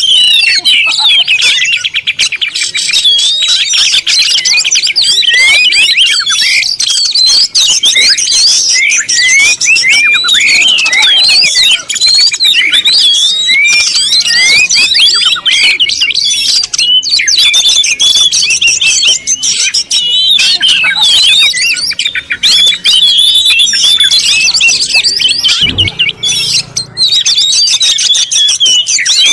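A dense chorus of many small birds chirping and twittering at once, their high calls overlapping continuously.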